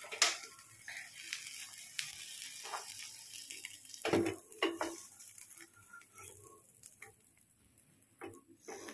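A wooden spatula scrapes under an omelette in a nonstick frying pan while the oil still sizzles faintly and dies away. Two louder knocks of the spatula against the pan come about four seconds in as the omelette is lifted out, and there are a few lighter knocks near the end as it goes onto a glass plate.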